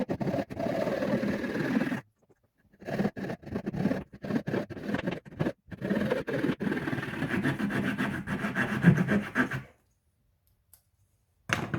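A wooden stick being sawn through by hand with a Swiss Army knife, in quick rasping back-and-forth strokes. There is a short pause about two seconds in, and the sawing stops near the end.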